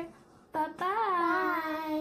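A child's voice drawn out into one long sing-song note, starting about halfway through and wavering up and down in pitch.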